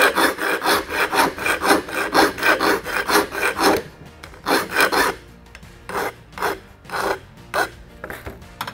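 Hand file rasping across the mitered end of a chromoly steel bicycle frame tube, fast even strokes at about four a second for the first few seconds, then a handful of slower single strokes: hand-fitting the miter to close a gap.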